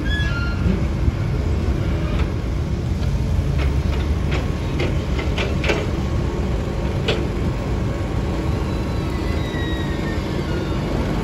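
Single-drum road roller running: a steady low diesel rumble, with several sharp clicks in the middle.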